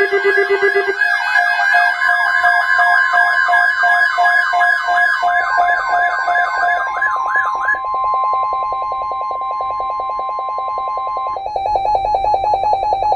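Electronic emergency-alert tones layered together: several warbling siren tones that die away about seven seconds in, over a steady high alert tone that stops about eleven seconds in and a rapid pulsing tone underneath.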